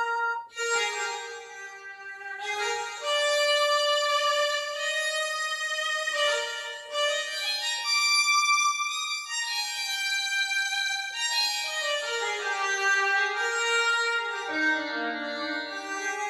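Roland XPS-10 synthesizer keyboard playing a slow melody on a violin-like bowed-string tone, one sustained note at a time, with some notes bending into the next.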